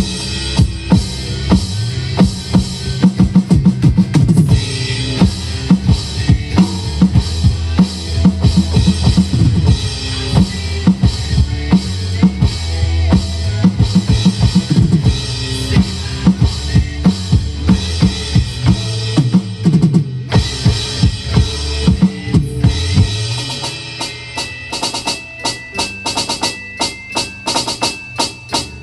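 Electronic drum kit played hard and fast along with a recorded rock song, with dense fills of drum and cymbal strokes. Near the end the playing drops to lighter, quieter strokes and the low end thins out.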